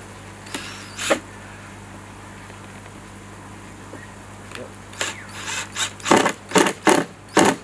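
A screw being driven into a pond skimmer's faceplate. There is a single short scrape about a second in, then a run of four or five short bursts close together near the end as the screw goes home tight. A steady low hum sits underneath.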